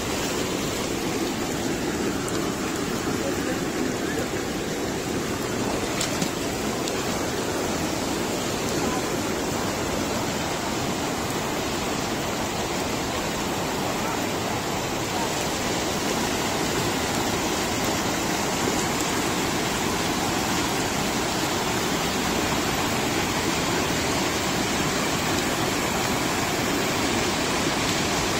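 Steady rush of muddy floodwater pouring down a small creek swollen by heavy rain.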